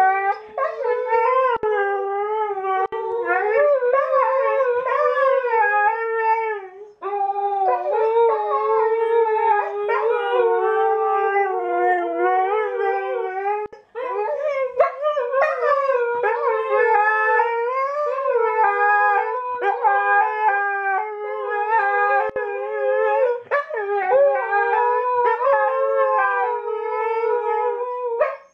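Siberian huskies howling: long howls whose pitch wavers up and down, broken twice by short pauses.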